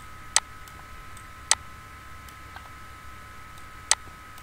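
Three sharp computer mouse clicks, spaced unevenly, the last near the end.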